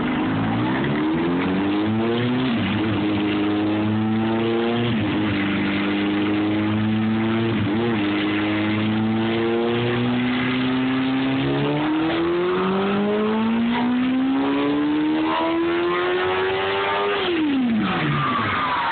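2006 Kawasaki ZX-10R's inline-four, with a K&N air filter and race exhaust baffles, run on a chassis dyno. The revs rise in steps and hold level, then climb steadily for about five seconds in a full-throttle pull. Near the end the throttle is shut and the revs fall away quickly.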